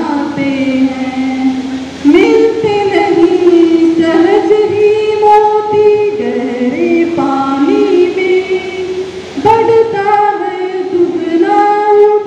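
A woman singing a Hindi chetna geet (motivational song), unaccompanied, in long held notes that step up and down in pitch. Loud new phrases begin about two seconds in and again near the ten-second mark.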